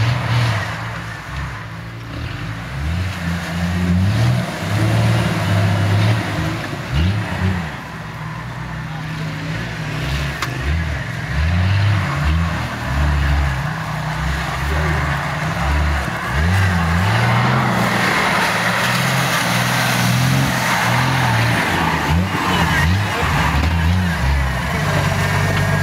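Jeep Wrangler's 4.0-litre straight-six engine revving up and easing off again and again under load, working the vehicle through a muddy, wet ditch.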